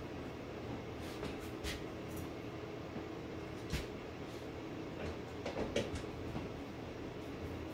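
Light metallic clicks and knocks as a sheet-metal breaker panel cover is handled and set in place, loudest in a short cluster a little past halfway. A steady low electrical hum runs underneath.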